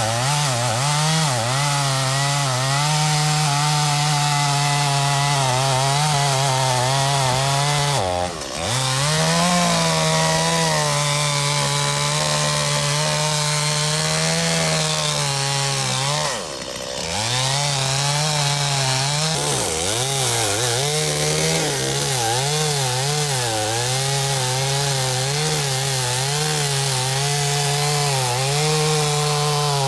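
Stihl MS 250 two-stroke chainsaw running at high revs, cutting red elm, its pitch wavering under load. The engine falls off briefly twice, about a quarter of the way and again about halfway through, then picks back up.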